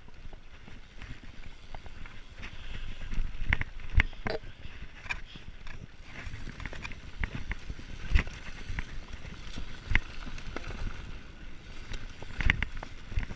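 Mountain bike descending a loose gravel dirt trail: tyres crunching over stones, with the bike rattling and a handful of sharp knocks as it hits bumps.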